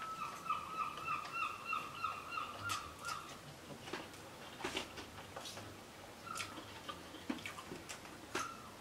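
A high, slightly wavering hum of enjoyment through a full mouth, held for about three seconds. It is followed by quiet eating sounds: chewing, slurping linguine and forks clicking against a foil tray.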